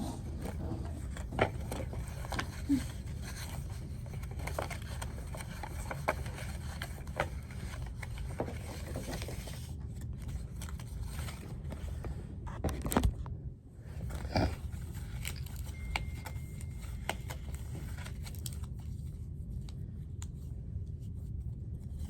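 Scattered light clicks, scrapes and rustles of things being handled, over a steady low rumble.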